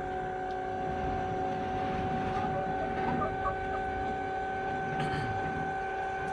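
12-volt linear actuator's electric motor running steadily with a whine of several steady tones, slowly pushing a chicken coop door up on drawer slides.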